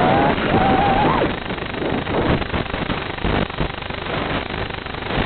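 Electric motors of an FPV model whining, the pitch rising briefly and then stopping about a second in, followed by a crackling, hissing noise with scattered sharp ticks.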